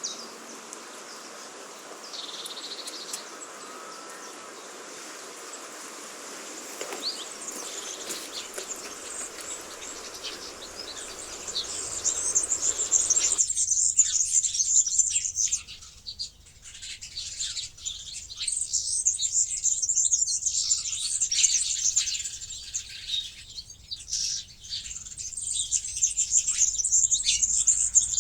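Birds chirping and singing. At first a few calls sit faintly over a steady outdoor hiss; from about 13 seconds in, a louder, dense chorus of high chirps takes over.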